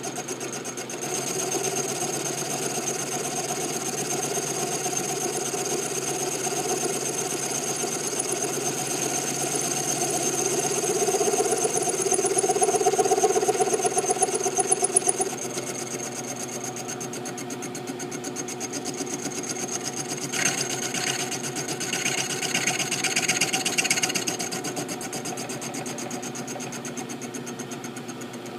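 Milling machine running with a steady hum and a high whine while cutting slots in a steel pistol slide. It gets louder for a few seconds in the middle, and a rough scraping patch follows later.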